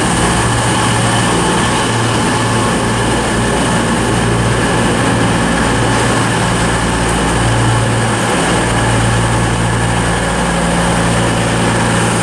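Class 221 Voyager diesel-electric train's engines running steadily: a low engine hum with several steady high-pitched whines above it, swelling briefly about two-thirds of the way through.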